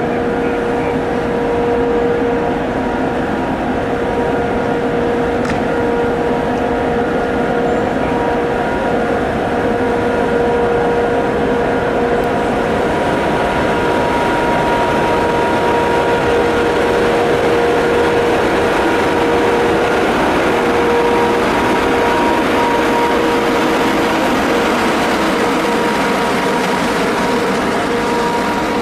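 ČS2T (ChS2T) electric locomotive standing with its auxiliary machinery running: a steady, loud hum with a fixed whine over the rush of its cooling fans. The noise builds slightly in the second half as the locomotive begins to pull away.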